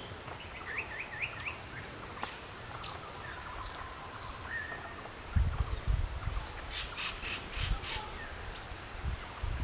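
Several wild birds calling: thin high chirps, a quick run of four short notes about half a second in, and rapid chattering later. From about five seconds in, low rumbling noise comes and goes underneath.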